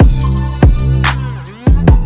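Background electronic music with a hip-hop style beat: deep bass kicks and sharp drum hits over held synth tones.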